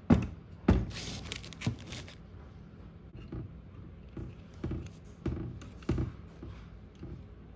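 Carburetor parts and small hand tools being handled during reassembly: a few sharp clicks and knocks, a brief rustle about a second in, then softer taps every half second or so.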